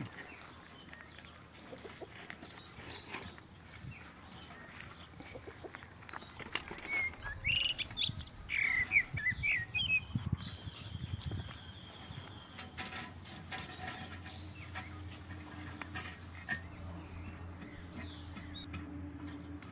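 Steel rebar being tied with wire and pliers, with scattered light metal clicks and scrapes. Birds chirp for a few seconds around the middle, and a low steady hum comes in during the second half.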